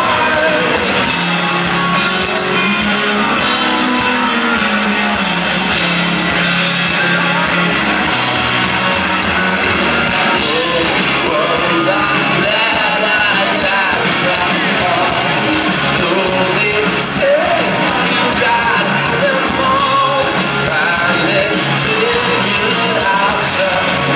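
Live rock band performing with electric guitars, drums and a lead vocal, heard from among the audience.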